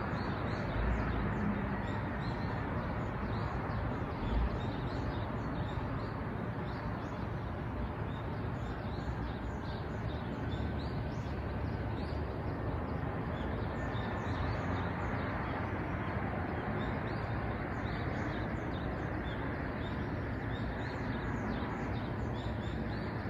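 Birds chirping, many short high calls in quick succession over a steady background rush; the chirping thins for a few seconds midway.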